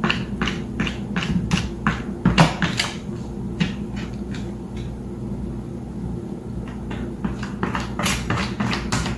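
A run of irregular sharp taps or clicks over a steady low background, thinning out in the middle and coming thick again near the end.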